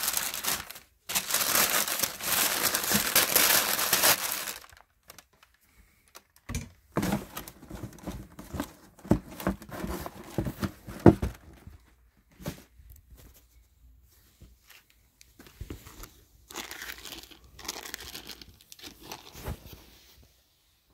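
Tissue paper inside a shoe box crinkling loudly as it is pulled open and crumpled. Softer rustling and a few sharp knocks follow as the cardboard box is handled.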